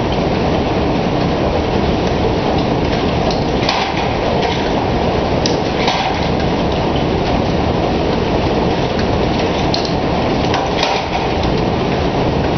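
Steady, loud roar of blacksmith-shop equipment running, with a few faint sharp metal clicks scattered through it.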